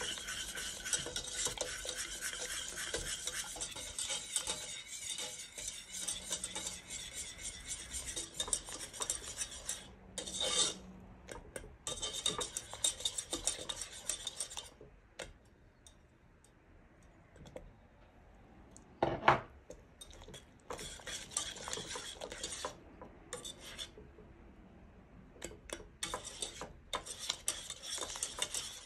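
Wire whisk beating a thickening custard in a stainless steel saucepan, the wires rattling and scraping against the pan in quick strokes. The whisking runs steadily for about half the time, then comes in shorter spells with pauses, with one sharper knock of metal on the pan about two-thirds through.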